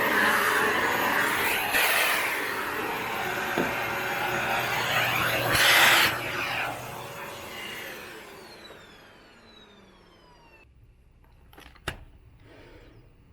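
Panasonic paper-bag canister vacuum cleaner running with its nozzle, loudest just before it is switched off about six seconds in. The motor then winds down with a falling whine over a few seconds. A single sharp click comes near the end.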